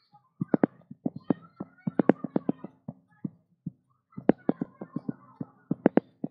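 Rapid, irregular clicking or tapping, several sharp clicks a second, with a brief pause a little after the middle.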